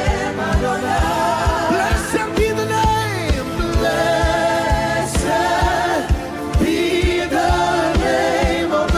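Live gospel worship song: sustained, sliding sung vocal lines over a band with a steady kick-drum beat.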